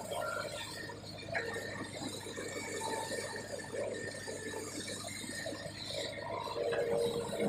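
Excavator working, its engine and hydraulics running steadily with a short metallic knock about a second and a half in.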